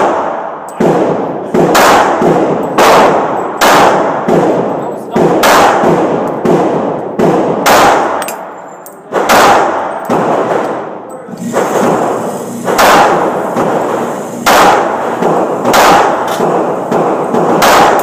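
A handgun firing a steady string of single shots, roughly one every second, each followed by an echoing tail, with a short pause just past the middle.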